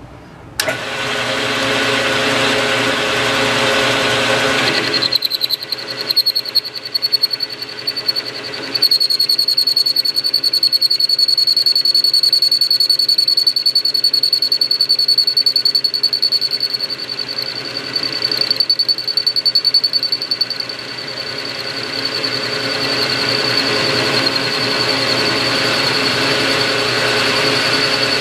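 A benchtop metal lathe starts up about half a second in and runs at speed while facing the end of an aluminium rod. A steady high whine joins after about five seconds, and the level wavers unevenly in patches as the tool cuts.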